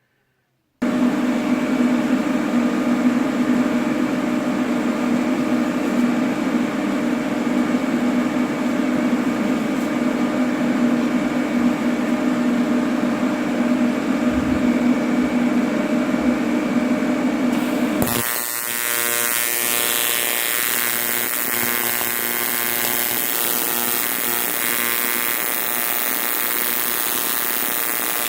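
AC TIG welding arc buzzing steadily on aluminum, heating the part so the arc's cleaning action lifts out the contaminants. It starts abruptly just under a second in, and about eighteen seconds in the buzz turns brighter and hissier.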